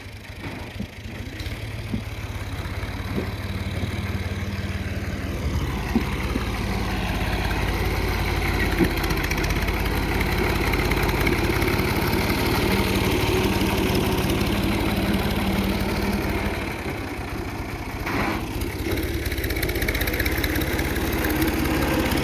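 An engine running steadily, growing louder over the first several seconds, with a few sharp knocks.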